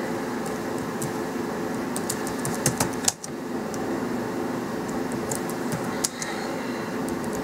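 Computer keyboard keys clicking in two short runs of typing, over a steady low hum.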